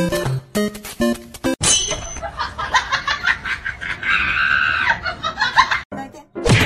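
A few notes of bouncy electronic music, cut off about one and a half seconds in. Then laughter in quick pulses and a shrill, held cry.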